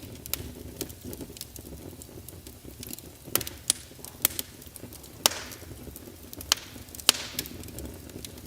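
Wood fire crackling in a fireplace: irregular sharp pops, the loudest about five and seven seconds in, each followed by a brief hiss, over a low steady rumble of the flames.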